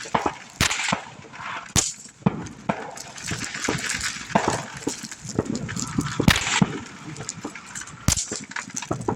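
Small fireworks going off in a string of sharp pops and cracks, with four louder bangs spread through it and lighter crackling between them.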